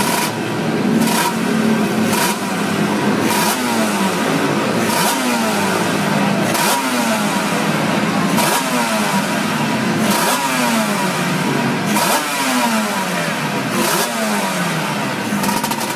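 Yamaha two-stroke racing motorcycle engine revved in sharp throttle blips, about one every one and a half to two seconds, each rev dropping back in pitch toward idle.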